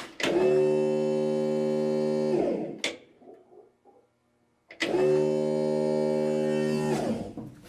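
Electric fuel pump priming at key-on: it runs with a steady whine for about two seconds and cuts off, a click follows, and it runs and cuts off again for another two seconds or so. The owner finds it overly loud and suspects it may be fitted backwards, though it does not sound to him like it is labouring.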